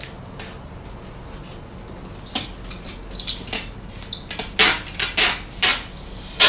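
Hands rubbing and pressing packing tape flat on the top of a large cardboard box: a run of short scraping swishes, sparse at first, then quicker and louder in the second half.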